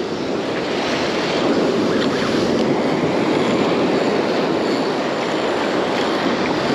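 Steady rush of ocean surf breaking and washing up the beach, loud and even, with no distinct strikes.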